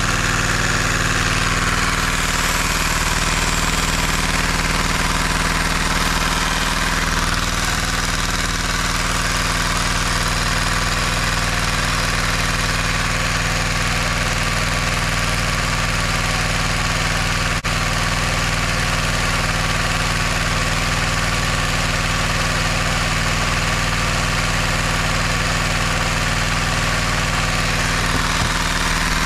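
LEGO inline two-cylinder vacuum engine running steadily at about 1,100–1,200 rpm: an even, fast mechanical running sound from its plastic pistons, crank and tyre-rimmed flywheel.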